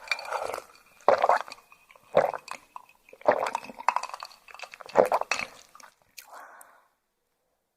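Close-miked wet chewing of raw yellowtail (buri) sashimi, with crisp, squishy bites in about five bouts roughly a second apart. A softer one follows, then the chewing stops about a second before the end.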